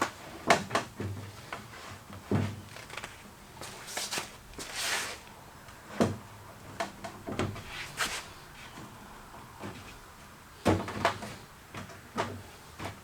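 Wooden bed-frame panels being handled and set in place: irregular knocks and clunks with short scrapes of wood, the loudest knocks about half a second in, about 6 seconds in and near the end.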